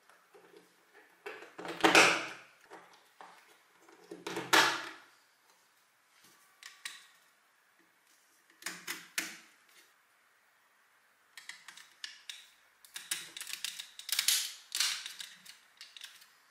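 LEGO Technic plastic pins, beams and frames clicking and rattling as they are pressed together by hand. The clicks come in clusters, loudest about two seconds in and again about four and a half seconds in, then as a long run of clicks over the last few seconds.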